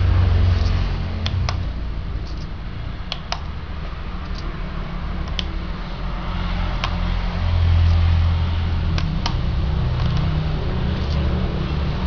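Plastic laptop keycaps being pressed down onto their scissor clips on a Toshiba Satellite C640 keyboard: scattered sharp clicks, some in close pairs. A steady low hum runs underneath and is louder than the clicks.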